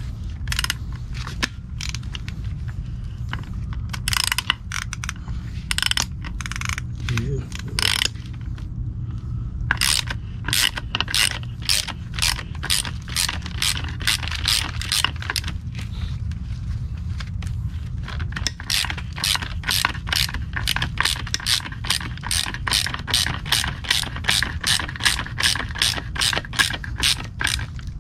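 Hand ratchet clicking as it runs down the strut mount top nut on a Civic Type R front strut assembly being rebuilt with a new spring. The clicks are irregular for the first several seconds, then settle into a steady run of about three to four clicks a second from about ten seconds in.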